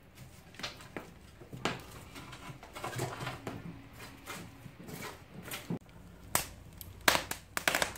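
Wood fire crackling in a fireplace, with irregular pops and snaps, a few louder ones near the end.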